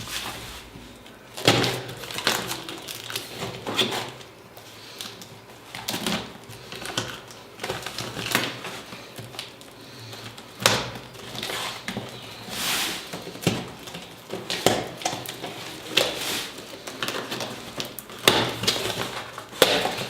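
A cardboard shipping parcel being opened and handled by hand: irregular knocks, scrapes and rustles of cardboard and packing.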